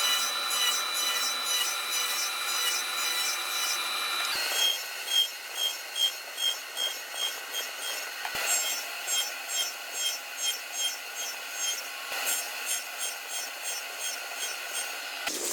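Hand tool working wood: steady scraping at first, then rhythmic back-and-forth strokes at about two a second from about four seconds in, typical of hand sawing or rasping.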